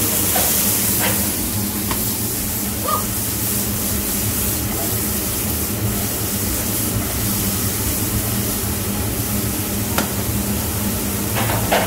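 Sliced mushrooms sizzling steadily in a hot frying pan, with a couple of sharp clicks near the end.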